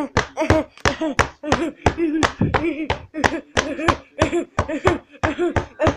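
A child's voice chanting a short syllable over and over in quick succession, about three to four times a second, each one starting sharply with a rise and fall in pitch.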